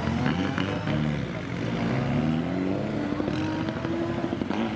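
Several rally car engines running at once, revving up and dropping back, their pitch rising and falling as the cars pull up to the start line.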